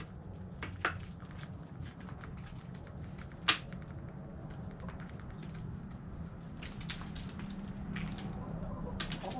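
Irregular light clicks and taps, with a sharper tap about three and a half seconds in, over a low steady hum.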